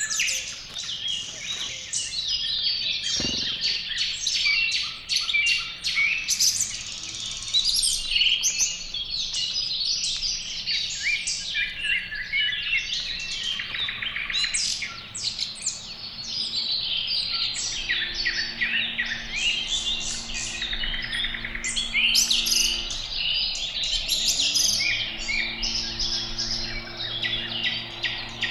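Many small songbirds chirping and calling continuously, in quick overlapping high notes. A faint low hum comes in over a third of the way through and rises in pitch about three-quarters of the way in, with a single dull thump early on.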